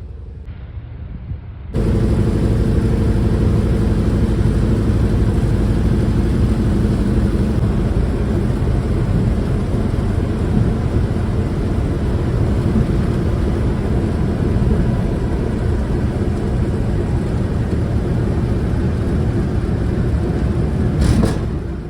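Antonov An-2's nine-cylinder radial engine and propeller droning steadily, heard from inside the cockpit along with rushing air noise. It is quieter for the first second and a half or so, then jumps up in loudness and stays steady.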